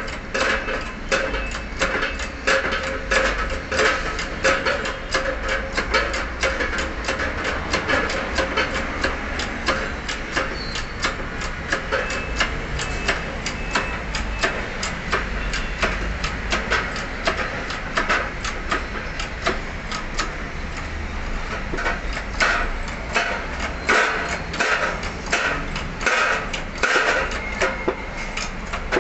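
Workshop press pressing a wheel bearing in a steering knuckle, with rapid, irregular metallic clicking and knocking over a steady low hum.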